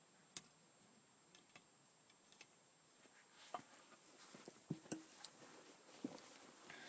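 Near silence with a few faint, scattered clicks and light taps, two of them close together with a brief ring about two-thirds of the way through.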